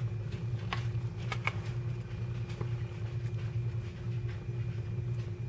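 Fork cutting into meatloaf in a frozen-dinner tray, with a few faint clicks of the fork against the tray in the first three seconds, over a steady low hum.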